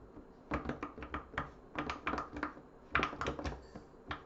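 Silicone pop-it fidget toy having its bubbles pressed one after another, giving quick, irregular popping clicks, several a second, with short pauses between runs.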